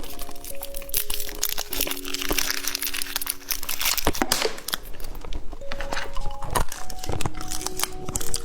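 Candy wrapper crinkling and tearing as a White Rabbit milk candy is unwrapped by hand, in irregular rustles with many sharp crackles.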